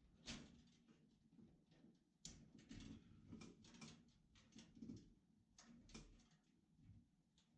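Faint, irregular clicks and rustling of hands working on a light fixture's wiring, with the sharpest clicks about a quarter second and two seconds in.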